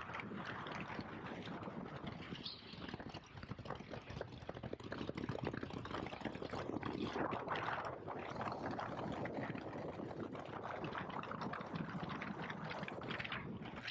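Motorcycle being ridden: the KTM 1290 Super Adventure S's V-twin engine running under a dense, uneven rush of wind and road noise that rises and falls.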